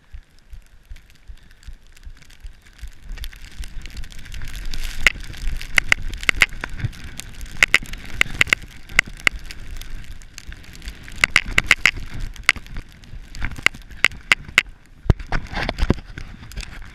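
A snowboard riding down a steep powder slope, heard from a camera on the rider: a rushing hiss of snow and wind on the microphone that swells about three seconds in. It is peppered with many sharp clicks and knocks, and a few heavier thumps come near the end.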